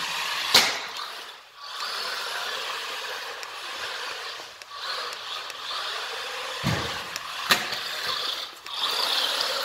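Small electric RC car with a 390 motor driving and jumping, its motor, gears and tyres making a steady whirring hiss. Two sharp knocks, about half a second in and near the end, come as it hits the ramp or lands.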